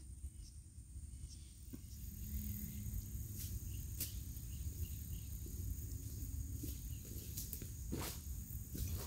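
Steady high-pitched chorus of insects shrilling in the woods, with a few faint scattered clicks.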